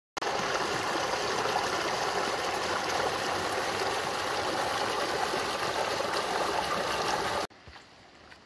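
Rushing stream: a steady, loud rush of water that cuts off abruptly about seven and a half seconds in, leaving faint background sound with a few light ticks.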